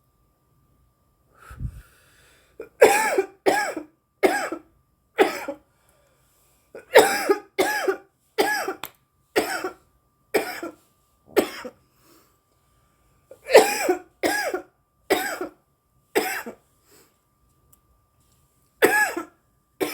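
A woman coughing hard in about four bouts of several quick, rough coughs each: a smoker's coughing fit from inhaling cannabis smoke from a joint.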